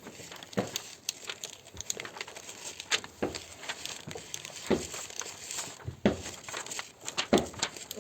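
Irregular crinkling and crackling, scattered clicks and rustles made by hand with classroom materials to imitate a nature sound.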